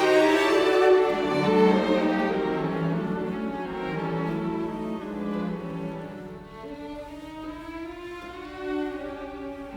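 Background music of bowed strings, violin and cello, playing slow sustained notes.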